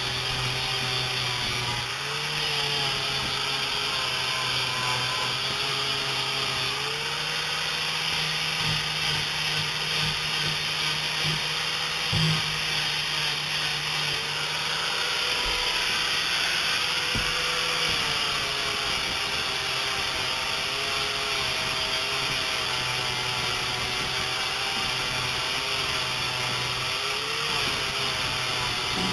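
Angle grinder fitted with a sanding disc, running steadily as it sands cured epoxy and fiberglass seams. Its motor tone shifts up and down a few times as the pressure on the work changes, over a constant gritty hiss, with one short knock about twelve seconds in.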